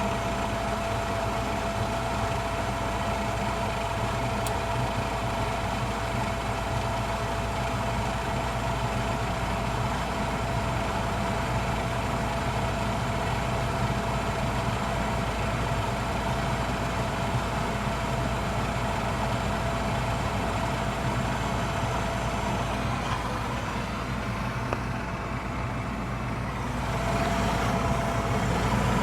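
Old gas furnace running after ignition, its burners lit and its motor giving a steady mechanical hum with a constant whine. About 27 s in, the sound grows louder.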